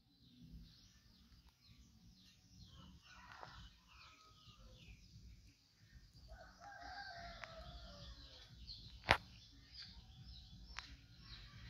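A rooster crows once, faintly, about six seconds in, over small birds chirping throughout. A single sharp click about nine seconds in is the loudest sound.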